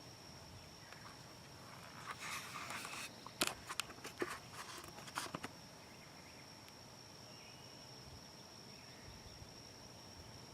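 A steady, high-pitched insect drone, with a few seconds of rustling and several sharp clicks about two to five seconds in.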